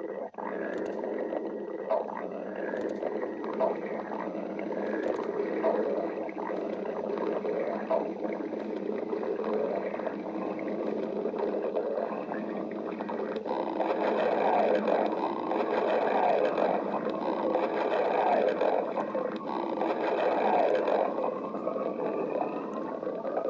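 Stomach growling: a long, continuous rumbling gurgle that grows louder in the second half, with a drawn-out rising tone near the end.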